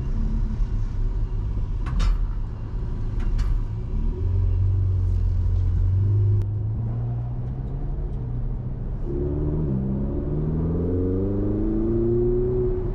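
Ferrari 488 GTB's twin-turbo V8 heard from the cabin with the window down, pulling away and accelerating, its pitch climbing, dipping once at an upshift and climbing again. Two sharp clicks come before the engine swells.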